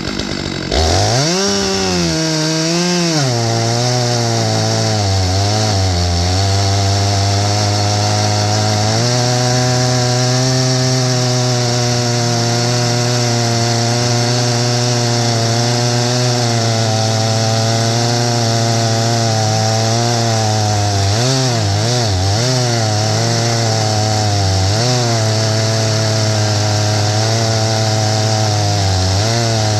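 Stihl MS661 chainsaw, with a 36-inch bar in an Alaskan mill, ripping lengthwise through a pine log under heavy load. It cuts in abruptly just under a second in. The engine's pitch dips and recovers several times as the cut loads it, and runs steady in between.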